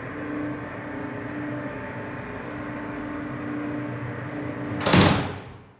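Dark background score: a steady droning pad with held low tones, ending near the end with one loud cinematic impact hit that dies away within about a second.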